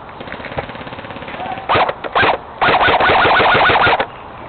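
Airsoft electric rifle firing: two short bursts, then a longer burst of about a second and a half with rapid, evenly spaced shots.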